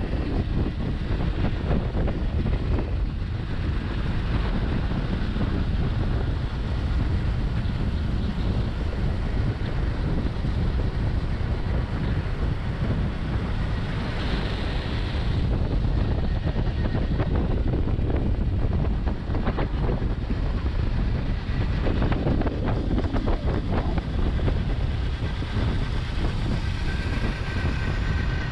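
Steady wind rush on the microphone of a Husqvarna supermoto riding at speed, with the bike's engine running underneath.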